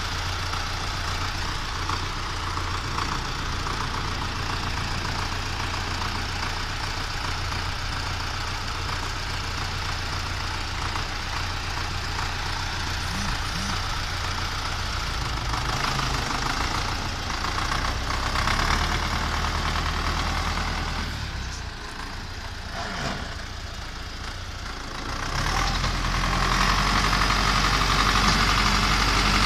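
Tractor engine running steadily at low revs. It drops quieter for a few seconds about two-thirds of the way through, then revs up louder near the end.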